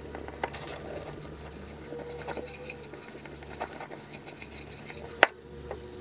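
Spatula scraping and tapping against the sides of a glass mixing bowl as flour and Greek yogurt are stirred into a stiff dough, with one sharp knock a little after five seconds in.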